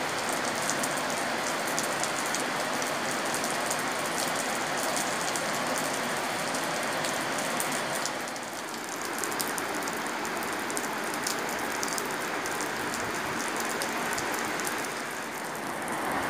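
Heavy rain falling steadily: a dense hiss with the close patter of individual drops. It eases slightly about halfway through and again near the end.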